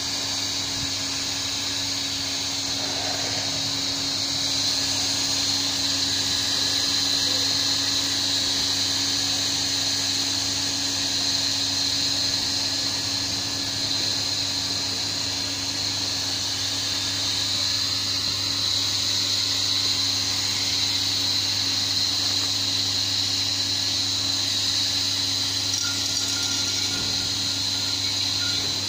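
Hand-held hot-air plastic welding gun running steadily: its blower whirs with a constant hum and hot air hisses from the speed-welding nozzle as plastic filler rod is welded into a duct seam.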